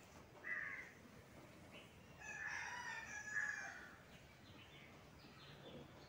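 Rooster crowing: a short call about half a second in, then one longer crow lasting about a second and a half, starting about two seconds in.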